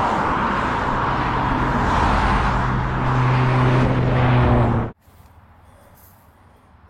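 A motor vehicle running close by, a steady hum over noise that grows louder, cut off suddenly about five seconds in.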